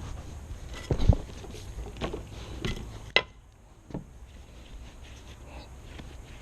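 A few separate knocks and clicks, the loudest about a second in and a sharp click just after three seconds in, followed by a quieter stretch.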